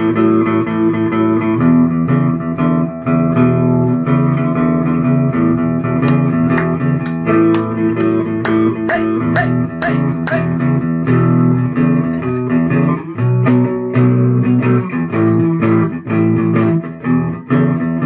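Lleonart Parlor Electra, a hollow-body mahogany parlor electric guitar with P90 pickups, played plugged in: a short improvisation of chords and picked single notes.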